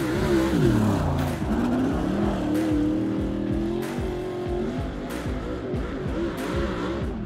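Dirt-track race car engine passing close by at speed, its pitch dropping as it goes past, then running on at high revs, wavering up and down as the car goes around the far side of the oval.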